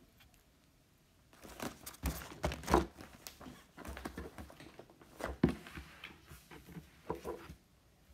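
Irregular handling noise: rustling with a scatter of clicks and knocks, starting about a second in and stopping shortly before the end, with two louder knocks.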